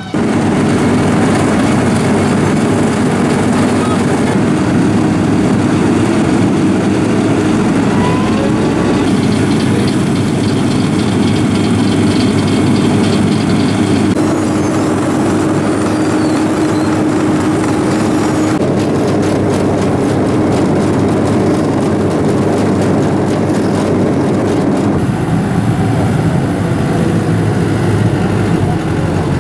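Diesel engines of road-building machines running steadily: a Vögele asphalt paver and a Hitachi road roller at work. The engine noise shifts in character several times.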